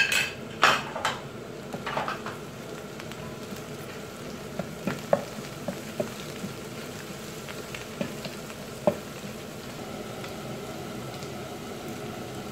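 Egg and chicken mince sizzling steadily in hot oil in a frying pan while a wooden spatula stirs it. The spatula knocks and scrapes against the pan several times in the first couple of seconds, then more sparsely until about nine seconds in.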